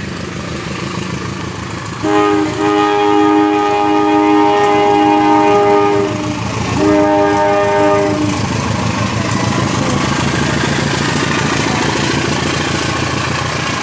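CC201 diesel locomotive's air horn sounding a chord in two blasts, a long one of about four seconds then a short one of about a second and a half, over the steady rumble of the engine. After the horn, the train's wheels keep up a steady rolling noise as the cars pass.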